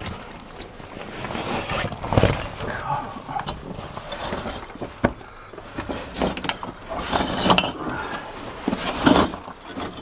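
Irregular scuffing, rustling and sharp knocks of people moving about and handling gear over rubble.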